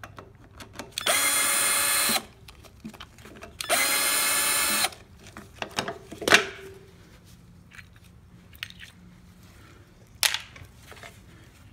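Power drill with a 5/16 in socket bit running twice, about a second each time, backing out the air filter housing screws on a Briggs & Stratton 140cc engine. Light clicks and a sharp knock follow as the plastic housing is pulled off.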